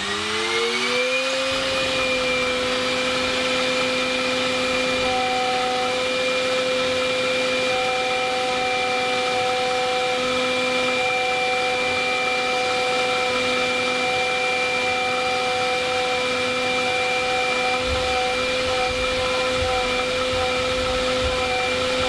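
DIY CNC milling machine's spindle running up to 15,000 rpm, its whine rising in pitch over the first second or so and then holding steady while a 3 mm three-tooth carbide end mill cuts 21MnCr5 tool steel. A second, lower tone comes and goes throughout over a steady hiss.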